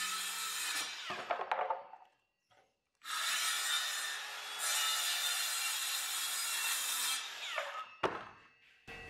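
Circular saw cutting through a particle board sheet in two stretches, the blade spinning down after each. A knock near the end as the saw is set down on the bench.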